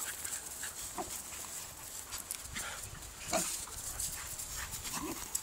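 Two dogs play-fighting, giving short rising yips and vocal calls about three times, with paws scuffling on dirt.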